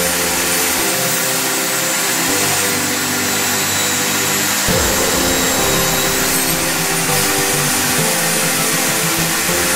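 Table saw running under load with a steady high whine, ripping a thin strip off a maple board. A brief heavier jolt comes about halfway through.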